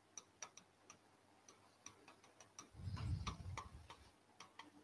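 Faint, irregular clicking of a pen tip tapping on a digital whiteboard as words are written, about three to four clicks a second, with a brief low murmur about three seconds in.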